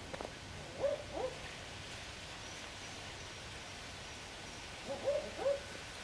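Ninox hawk-owl giving two double hoots, a pair of short notes about a second in and another near the end, the second note of each pair a little lower.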